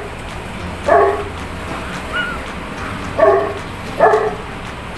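A dog barking: three short barks, one about a second in and two more close together near the end, over a steady low hum.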